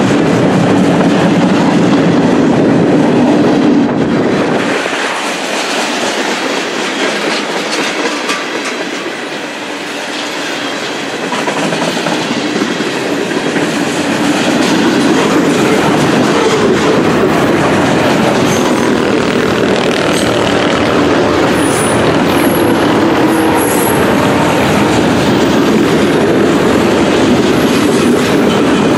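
Freight cars of a long mixed train rolling past close by: steel wheels clattering over the rails in a steady rumble, quieter for a few seconds about five seconds in. Light, high wheel squeal comes and goes in the second half.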